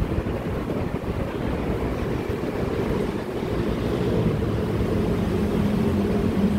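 Steady low rumbling noise of wind buffeting the microphone while walking, with the faint general hum of a large, open-sided station concourse underneath.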